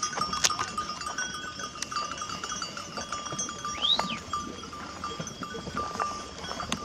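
A penned flock of sheep with bells clinking steadily, and a single rising-and-falling bleat about four seconds in.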